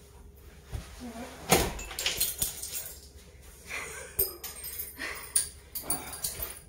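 A heavy thump about a second and a half in as a man is dropped onto a wooden bed. It is followed by scattered bright clinks and jingles of glass bangles, with breathy vocal sounds.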